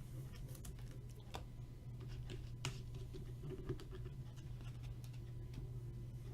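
Trading cards being handled: faint, irregular clicks and light scrapes as the cards are slid and flipped, over a steady low hum.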